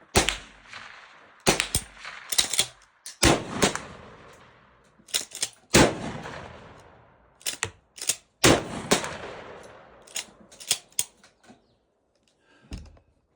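Shotgun fired about seven times in fairly quick succession, each shot dying away over a second or two, with shorter, sharper clicks between some of the shots. The firing is a function test of the gun after a shop repair.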